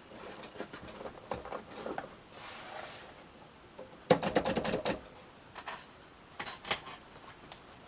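1951 Royal Quiet De Luxe manual portable typewriter mechanism clicking: scattered clicks, a brief hiss, then a fast loud run of clicks about four seconds in, followed by a few more clicks.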